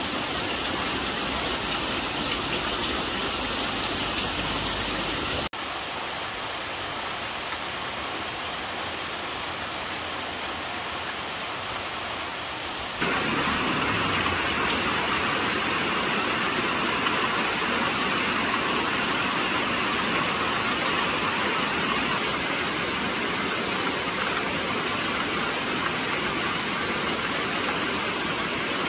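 Rain falling steadily on leaves and palm fronds, an even hiss. It drops abruptly in level about five seconds in and comes back up just as abruptly about thirteen seconds in.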